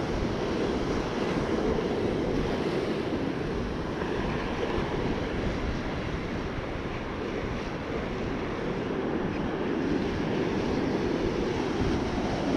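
Heavy storm surf breaking and washing up the beach in a steady rush, with wind buffeting the microphone.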